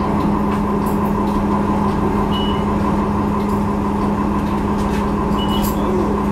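Steady drone of a transit bus heard from inside the cabin: the engine and ventilation run with a constant low hum. Two short high beeps sound about three seconds apart.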